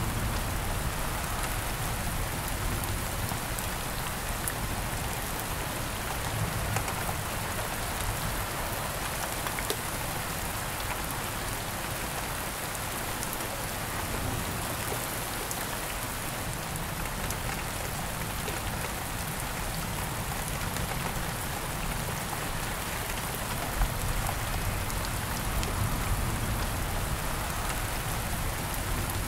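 Steady rain falling: a dense, even hiss of many drops with scattered sharper drop ticks, one standing out a little louder near the end.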